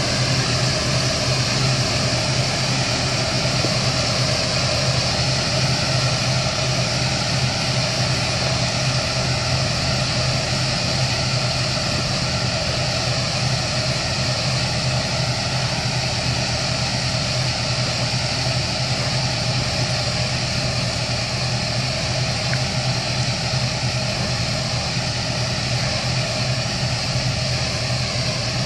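Steady drone of a tractor pulling a Munckhof three-row air-blast sprayer, with the engine and sprayer fan running at constant speed under a steady hiss.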